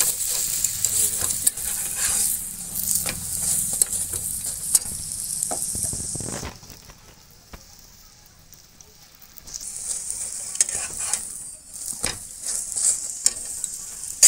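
Sattu paratha frying in a non-stick pan, sizzling steadily, with a metal spatula pressing and tapping on it. The sizzle drops away for about three seconds midway, then comes back as the paratha browns.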